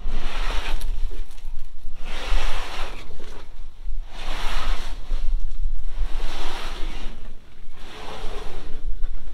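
Wind buffeting the microphone as a steady low rumble, with swells of rustling about every two seconds as the old tarp is pulled down over the side of the side-dump trailer's box.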